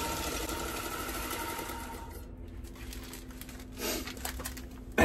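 Motor-driven shaft and rollers of a homemade automatic bicycle gear changer whirring, with a few steady tones, then fading away over the first two seconds or so; a short knock follows near the end.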